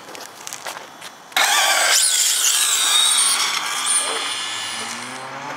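Two brushless-motor electric RC cars launching off the drag start line about a second and a half in: a sudden loud high-pitched whine of motors and gears with tyre noise, rising in pitch as they accelerate, then fading as they race away.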